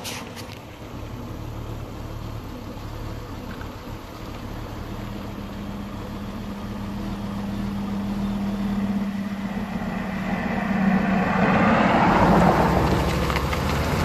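2000 Volvo V70 XC's five-cylinder engine pulling under acceleration, a low steady hum, with tyre and wind rush swelling as the car gathers speed and loudest near the end. The engine has a misfire that flashes the check-engine light, later logged as cylinder 2, along with low compression.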